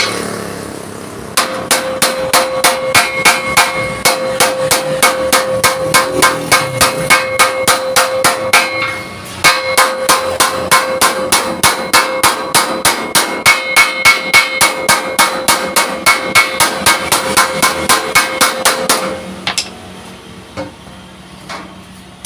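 A hammer beating thick steel sheet, a quick steady run of blows at about four or five a second, the plate ringing with each strike. The hammering pauses briefly about nine seconds in, resumes, and stops a few seconds before the end.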